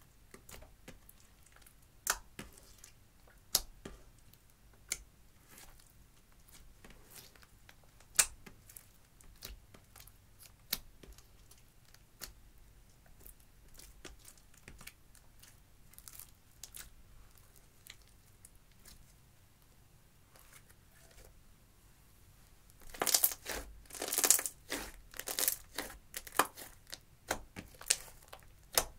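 Hands squishing and kneading clear slime mixed with crushed eyeshadow: sparse sticky pops and clicks. About three-quarters of the way through comes a dense, louder run of wet crackling pops as the slime is folded and stretched.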